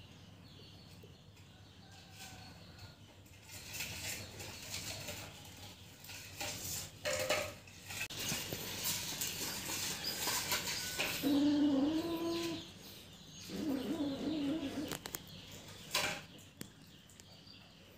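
Clear plastic bag rustling and crinkling as cats tug at it, with a few low, wavering animal calls near the end.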